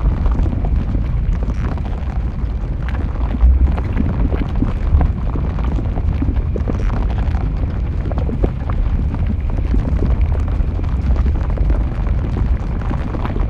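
Molten lava flowing, with a steady low rumble under a constant scatter of small crackles and pops.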